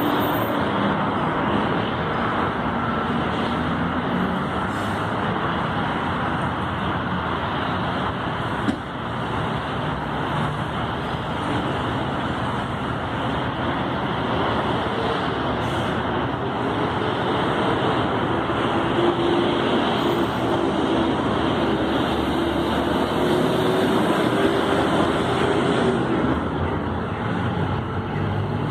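Steady road traffic noise from a city street. In the second half a vehicle's engine hum slowly rises in pitch and drops away near the end. There is a single brief knock about nine seconds in.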